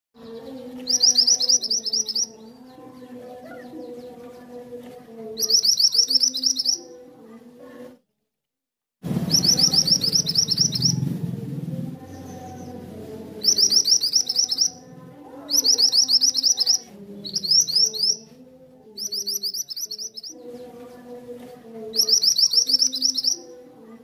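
Caged mantenan (kuniran), a yellow-and-black minivet, singing: bursts of rapid high chirps, each about a second long, repeated every two to four seconds. The sound cuts out for about a second near eight seconds in.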